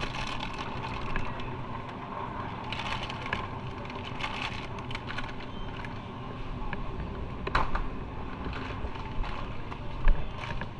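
Motorcycle on the move, heard from the bike: steady engine, road and wind noise with scattered clicks and rattles, one sharper knock about seven and a half seconds in.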